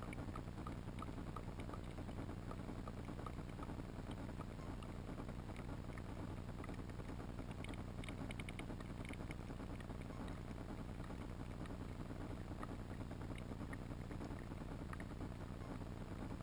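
Underwater ambient noise picked up by a GoPro submerged on a riverbed: a steady low rumble and hiss, with scattered faint clicks and a short run of rapid clicks about eight seconds in.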